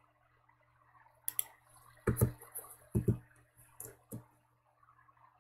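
About five short, separate clicks with a soft, wet quality, spread over a few seconds above a faint steady hum.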